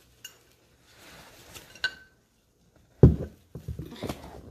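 Small clicks and a glassy clink from a nail polish bottle being handled and opened, with one sharp ringing clink a little before two seconds in. From about three seconds in come loud knocks and rubbing, as the phone filming is moved.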